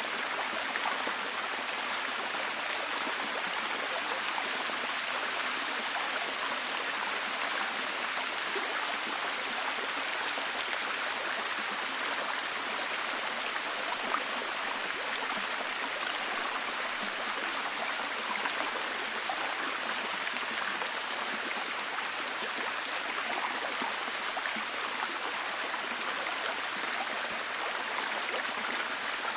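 Rainforest ambience: a steady, even wash of water sound with many small drips and ticks scattered through it, unchanging throughout.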